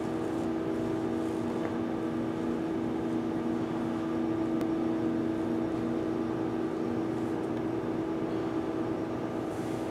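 Steady mechanical hum with several held low tones over a faint even hiss.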